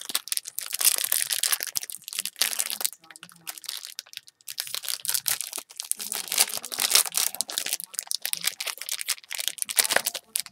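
Foil trading-card pack wrappers crinkling and tearing as they are handled and ripped open by hand. The crackle comes in irregular spells, with short pauses about three and five seconds in.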